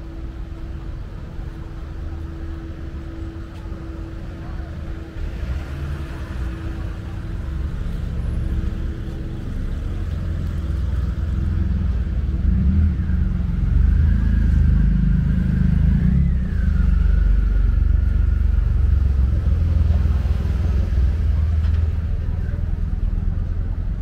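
Motor vehicle engine running close by in street traffic: a low rumble that grows louder about halfway through, with a thin whine rising and falling briefly in the middle.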